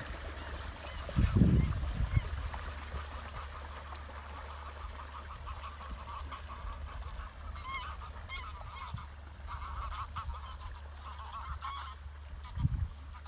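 Geese honking repeatedly, the calls coming thicker in the second half, over a steady low wind rumble on the microphone with a gust about a second in and another near the end.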